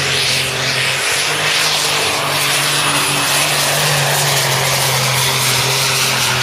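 Alcohol-burning Ford 9600 Light Super Stock pulling tractor running flat out under load as it drags the pulling sled, loud and steady in pitch, carrying through to a full pull.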